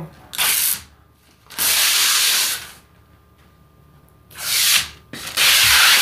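Protective masking film being peeled off a clear plastic sneeze-guard panel: four long, hissing peels, each lasting up to about a second.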